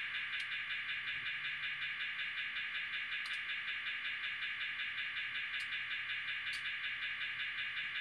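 The sound decoder of an N scale Kato SDP40F model locomotive, a factory-fitted ESU LokSound, playing a diesel engine idling through the model's tiny speaker. It is a thin, tinny, steady pulsing with no bass, with a few faint ticks.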